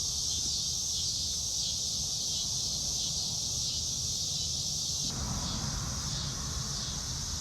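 Steady high-pitched hiss or chirring with a low rumble underneath; a wider, lower noise joins about five seconds in.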